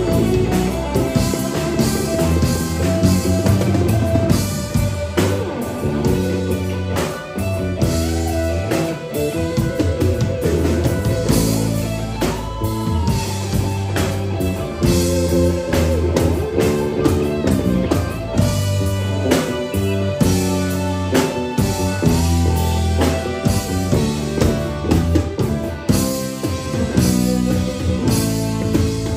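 Live rock band playing an instrumental passage, with electric bass, electric guitar, drum kit and saxophone.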